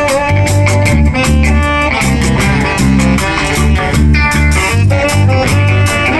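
Live band playing an instrumental passage between vocal lines: bass, drums on a steady beat and melody instruments, with horns coming in near the end.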